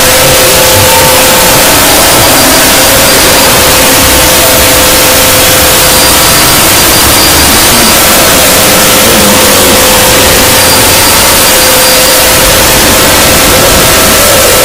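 Extremely loud, heavily distorted, over-amplified audio: a constant wall of harsh noise at full volume with a few faint steady tones buried underneath, with no change throughout.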